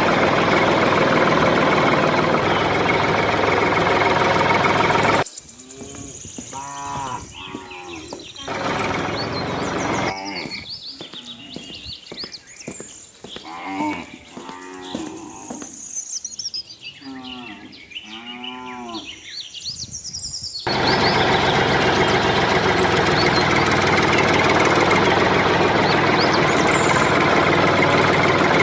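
Cattle mooing again and again, with small birds chirping, for about fifteen seconds in the middle. Before and after it, a loud, steady mechanical drone that starts and stops abruptly.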